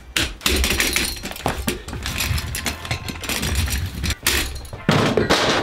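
Clicks, knocks and clatter of a chrome swivel stool's metal and plastic parts being handled and fitted together, with a louder rattle near the end.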